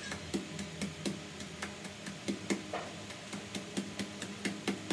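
Wooden pestle pounding cassava leaves in a wooden mortar, about three dull knocks a second, mashing the leaves to a paste.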